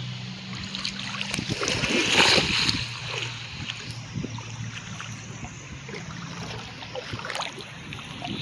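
Water splashing and sloshing in a shallow river, loudest about two seconds in, over a steady low hum.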